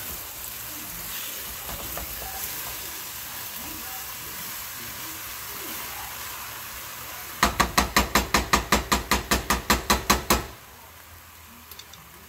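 Ground venison and potatoes sizzling in a pot on a gas burner while being stirred with a wooden spoon. Past the middle, a quick, even run of about twenty knocks, roughly six a second, as the spoon works in the pot, before the sizzle settles down quieter.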